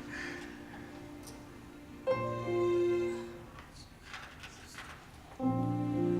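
Two held instrumental chords, one starting about two seconds in and fading, the second starting near the end and sustaining.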